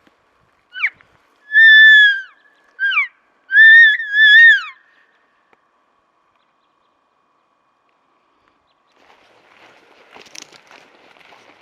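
Elk calls blown by the hunter: short, sharply falling chirps mixed with two longer, higher mews that drop in pitch at the end, loud and close. About nine seconds in, faint rustling starts.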